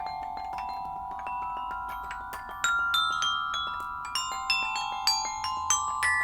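Small metal-bar glockenspiel (a toy 'xylophone') struck with mallets, with toilet paper laid on the bars. It plays a quick run of notes stepping up and back down, each note ringing on under the next.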